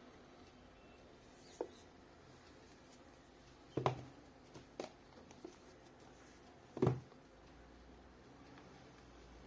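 Handling noise from unboxing a tablet: a few scattered knocks and taps of the box and packaging, the loudest about four and seven seconds in.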